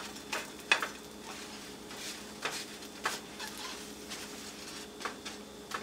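A protein pancake sizzling gently in coconut oil in a non-stick frying pan. A spatula scrapes and taps against the pan several times as it slides the pancake around.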